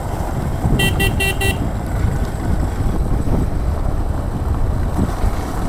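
A vehicle horn beeping four times in quick succession about a second in, over the steady low rumble of a motorcycle on the move.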